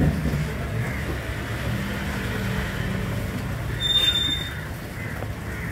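Crushed ice crunching and shifting as a fish is pulled about in a styrofoam box, over a steady low rumble. A brief, sharp high squeak comes about four seconds in.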